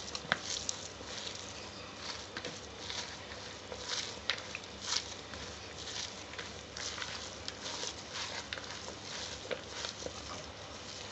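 Gloved hand mixing and kneading chopped onion, chilli, coriander and flaked mackerel in a plastic bowl: irregular rustling pats with a few sharp clicks.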